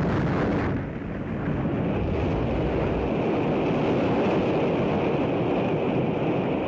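Rumbling roar of an Atlas-Centaur rocket exploding in flight, as a dense, steady noise on an old newsreel soundtrack. The low rumble is heaviest at the start and eases slightly about a second in.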